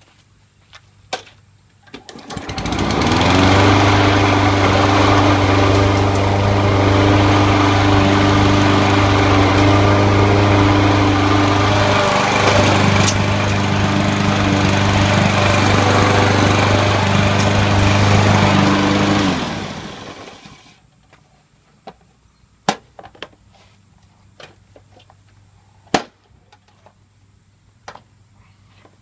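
Toro Recycler lawn mower's 6.5 HP Kohler engine starting about two seconds in and running steadily at one speed for about sixteen seconds. It is then shut off and spins down. A few sharp clicks and knocks come before the start and after it stops.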